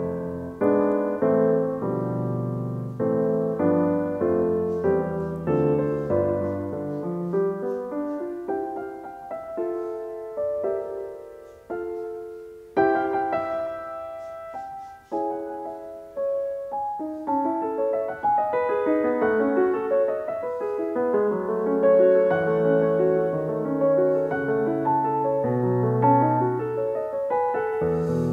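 Background piano music: a steady stream of single notes and chords, each struck and left to fade.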